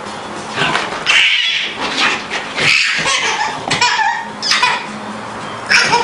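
Baby squealing and shrieking with laughter in short, high-pitched bursts, about half a dozen of them.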